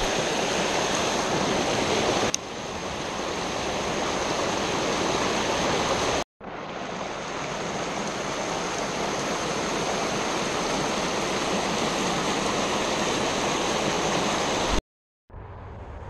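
Creek water rushing and splashing over rocks in a shallow riffle: a steady white-water rush. It cuts out abruptly for a moment about six seconds in and again near the end.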